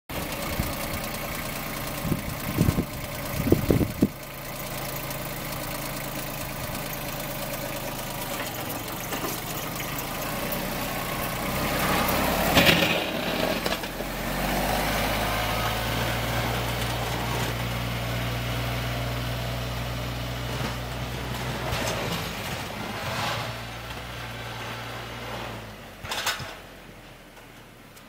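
Mahindra 2615 compact tractor's diesel engine running steadily while it pushes snow with a front plow. A few sharp knocks come in the first seconds, with another loud burst about halfway through. Near the end the engine fades as the tractor moves away.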